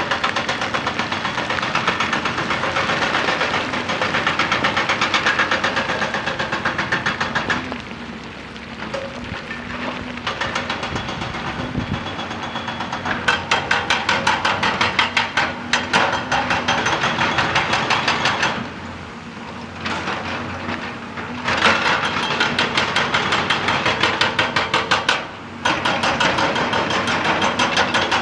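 Excavator-mounted hydraulic rock breaker hammering at rock in several spells of rapid, even blows, with short pauses between them and the excavator's diesel engine running steadily underneath.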